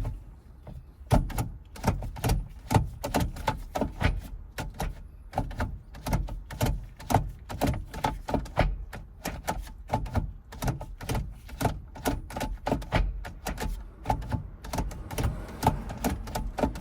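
Manual gear shifter of a Toyota MR2 (SW20) being worked through the gates on newly installed cables. It gives a rapid, irregular run of mechanical clicks and clunks, several a second.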